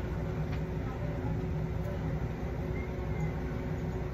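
Steady low machine hum carrying one constant tone, unchanging throughout.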